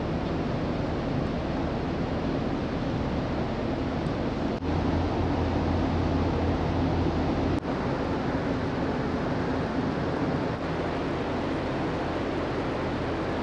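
Steady rushing noise of a ferry under way, wind and sea with a low hum beneath, shifting slightly in level at a few cuts between shots.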